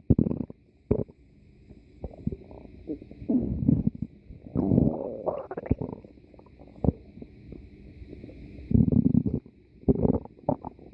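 Stomach growling: a run of irregular gurgles and rumbles, loudest at the very start and again about nine seconds in.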